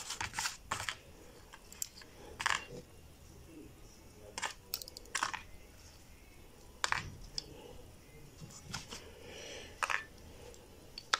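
Scattered short, light clicks, about ten of them at irregular intervals, with faint handling noise between: small coil springs being pulled out of a gear-reduction starter's brush holder and laid down on cardboard.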